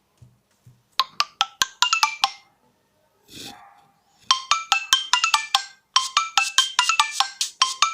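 Nokia Lumia 925 stock tones: a short run of marimba-like struck notes about a second in, a brief whoosh, then a fast, repeating mallet-percussion ringtone melody starting about four seconds in.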